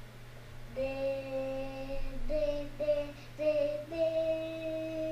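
A child singing a short run of held notes that step up in pitch, the last note held for about two seconds.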